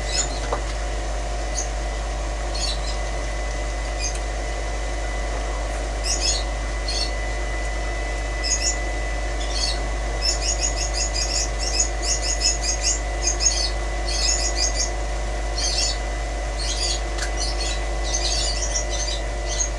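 A small bird chirping high and quick: sparse chirps at first, then quick repeated runs through the middle. A steady low hum runs underneath.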